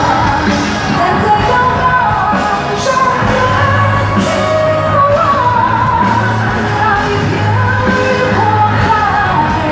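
Pop song with a lead singer over a band, played loud through a concert sound system.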